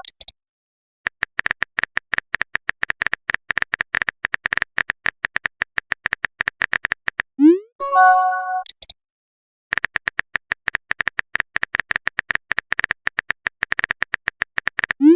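Rapid phone-keyboard typing clicks in two long runs. About halfway through they stop for a short rising swoop and a brief chime, a message-sent or message-received sound, and then the typing starts again.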